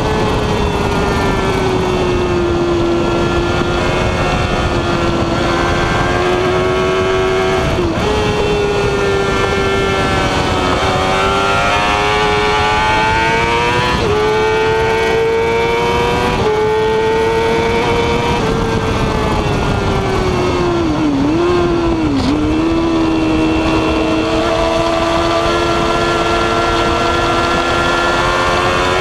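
Yamaha R6 inline-four sport bike engine running hard at high revs on track, with steady wind rush. Its pitch steps up and down with gear changes several times. Two quick dips come a little past two-thirds of the way through.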